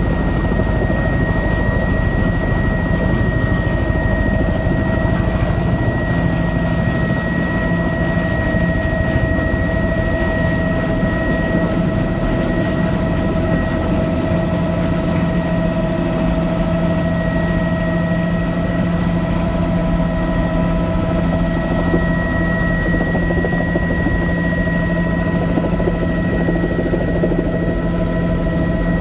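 Helicopter running steadily: a dense low rotor and engine rumble with steady turbine whine tones that hold level, without spooling up or down.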